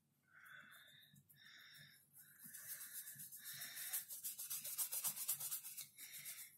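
Water brush pen scrubbing back and forth over wet paint on sketchbook paper: a rapid, rhythmic scratchy rubbing that grows louder about two seconds in and eases off near the end.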